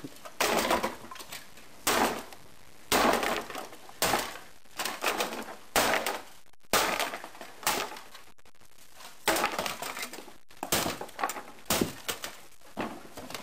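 A Sega Genesis console's plastic case being smashed with about a dozen separate hard blows, irregularly spaced roughly a second apart, each a sharp cracking impact.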